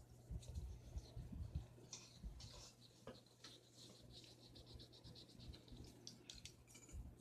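Faint scratching strokes of a drawing tool on paper, with a fast run of short strokes, about eight a second, around the middle. A few soft low knocks come in the first second and a half, over a steady low hum.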